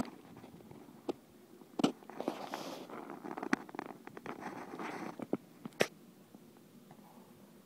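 Handling noise: rustling and scraping with a few sharp clicks, the loudest near the middle and just before the end, then quieter.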